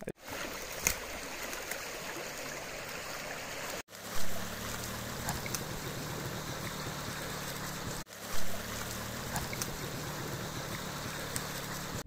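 Small stream rushing and splashing over a shallow riffle, a steady water noise. It drops out briefly twice, about four and eight seconds in, each time followed by a short louder swell.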